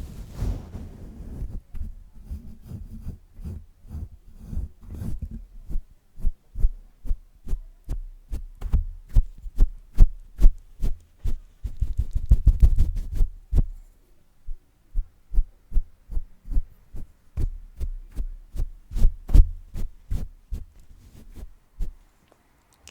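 Microphone being tapped and patted by hand: a long run of dull, low thumps, about two to three a second, with a few seconds of rubbing on the microphone about twelve seconds in.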